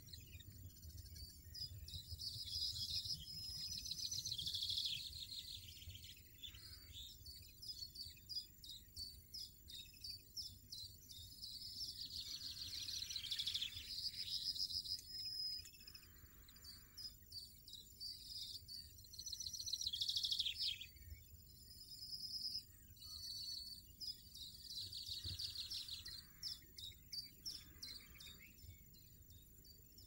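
European goldfinches at the nest, with the nestlings gaping for food: high-pitched chirping and rapid twittering trills in bursts every few seconds.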